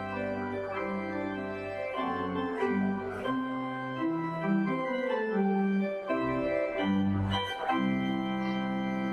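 Organ playing a postlude at the close of a church service: sustained chords with a moving melody line. The deep bass notes drop out for a couple of seconds midway, then return.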